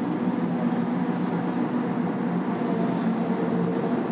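Steady drone of a car driving through a road tunnel, heard from inside the cabin: engine and tyre noise with an even low hum.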